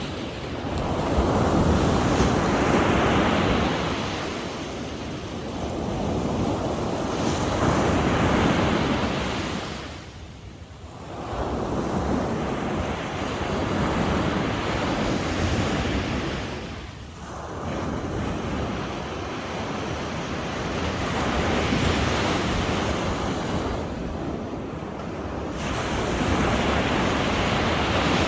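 Sea waves breaking on the shore, the surf surging and falling back every several seconds, with a couple of short lulls between sets.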